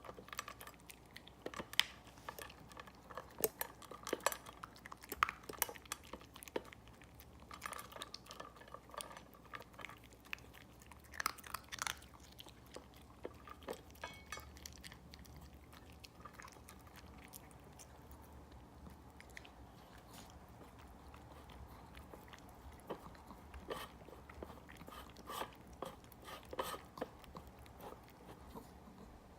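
Small dog (a Pomeranian–Spitz mix) eating its breakfast: quick crunching and chewing in bursts, with a sparser stretch about halfway through before the crunching picks up again.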